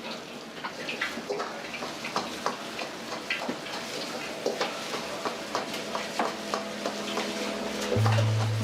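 Food frying in a wok: a steady sizzle with frequent sharp clicks of a metal ladle or spatula striking the wok as it is stirred. Music comes in near the end.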